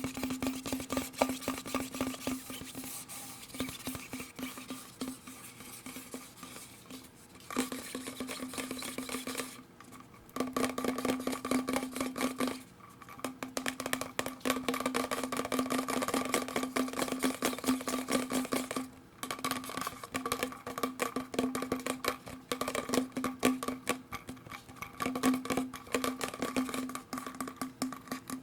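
Rapid, dense tapping and clicking on hard plastic, such as bottles and bottle caps, broken by a few short pauses, over a steady low hum.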